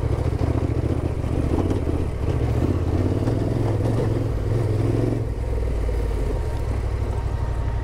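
Yamaha Ténéré 700's parallel-twin engine running at low speed over a rough gravel track, with clatter from the track. About five seconds in, the clatter and engine load drop away and the engine settles to an even idle.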